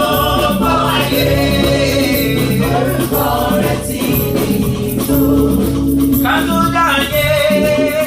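Gospel worship music: voices singing together over a band with a steady bass line.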